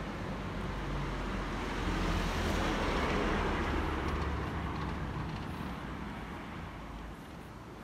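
A road vehicle driving past on the street, growing louder to a peak about three seconds in and then fading away.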